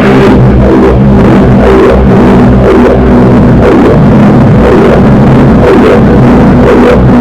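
Loud, heavily distorted drone-noise music: a sustained low droning chord under a dense wash of harsh noise. The droning chord thins out in the middle and comes back later.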